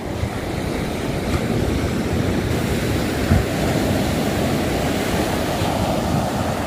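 Sea surf breaking and washing up a sandy beach in a steady rush of waves.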